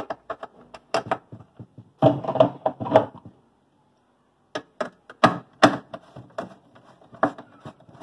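Irregular clicks and knocks of a screwdriver and screws being worked back into the plastic liner of a refrigerator's freezer compartment, with hand-handling knocks and a short pause near the middle.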